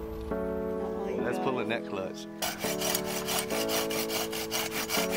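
Hand saw cutting through a small tree branch in quick, even back-and-forth strokes, starting about halfway through, over background music.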